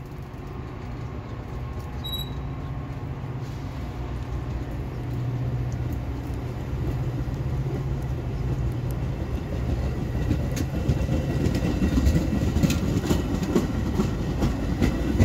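Metra bilevel passenger cars rolling out along the platform: a steady low rumble and drone that grows louder, with wheel clicks over the rail joints coming thicker and stronger from about ten seconds in.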